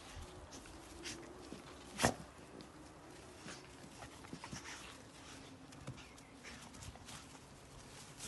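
Two dogs play-wrestling on grass: scattered scuffling and rustling as they tussle, with one loud sharp sound about two seconds in.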